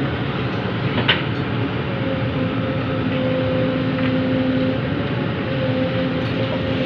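Heavy diesel construction machinery running steadily: excavator and dump-truck engines, with a steady hydraulic-type whine coming in about two seconds in and a single click about a second in.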